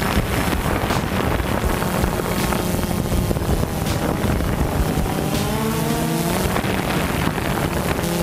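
Mark VI patrol boats running at speed, their engines and churning wake heard as a steady noise with heavy wind noise on the microphone. About five seconds in, a pitched tone wavers up and down over it.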